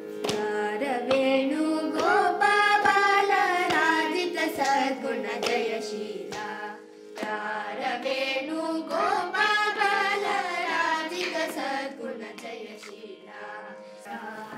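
Carnatic-style singing over a steady drone, with sharp percussive strokes throughout.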